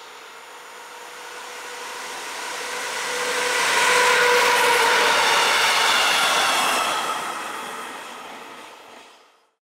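Siemens Vectron electric locomotive hauling two tank wagons passing at speed: the sound of wheels on rail grows, peaks as the train goes by and fades away, with a steady whine in several tones over the noise. The sound cuts off suddenly near the end.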